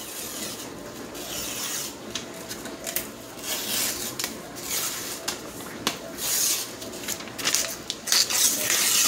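Paper label being peeled and torn off a cardboard tube of refrigerated biscuit dough, in a series of rasping tears and rustles, several a few seconds apart.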